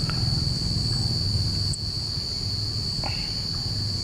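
Night insects droning: a steady high-pitched trill without a break, over a low rumble.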